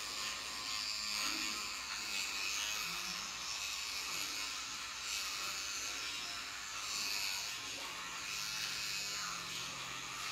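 Battery-powered electric toothbrush buzzing steadily while brushing teeth.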